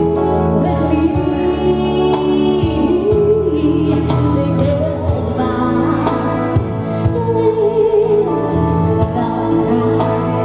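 A woman singing live into a microphone over keyboard backing from a Roland XP-80 synthesizer, with held chords under a wavering vocal line.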